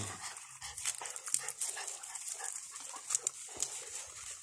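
A puppy panting softly, with light, irregular rustling and small clicks as it moves through wet grass.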